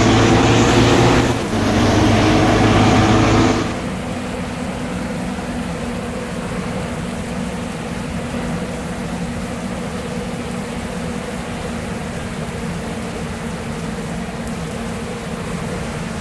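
Scania bus engine running, loud with a slightly rising pitch for the first few seconds and a brief dip partway through. It then drops suddenly, about four seconds in, to a steadier, quieter running note.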